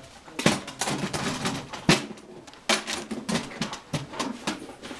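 Sharp metallic clicks and handling noises from a .36 calibre Pietta 1851 Navy black-powder revolver being worked by hand, its hammer and cylinder turned between shots.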